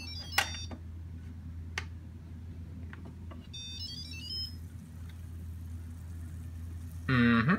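Electric pressure cooker lid twisted open with a sharp click and lifted off, over a steady low hum. Two short runs of electronic beeping tones sound, one around the click and one about four seconds in; near the end a loud voice-like sound with bending pitch begins.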